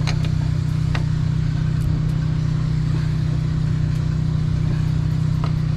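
Engine running steadily in a low, even drone, with a few sharp metallic clicks of a wrench and locking pliers on a brake-line fitting.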